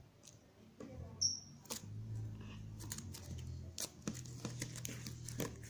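Slime being squeezed and pressed by hand, giving irregular crisp clicks and small pops, with a brief high squeak near the start. A low steady hum sits underneath from about a second in.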